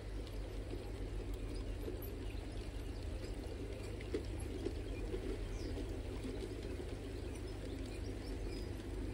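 LGB G-scale model trains running on garden track: a steady rumble and rattle of wheels and motors, with a few faint bird chirps over it.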